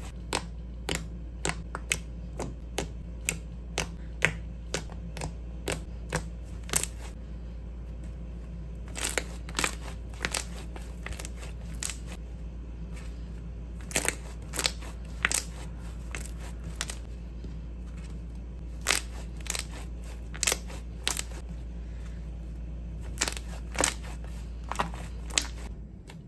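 Thick white slime being kneaded and pressed by hand, giving off sharp little pops and clicks as trapped air bursts, irregularly about one or two a second with a few short pauses, over a steady low hum.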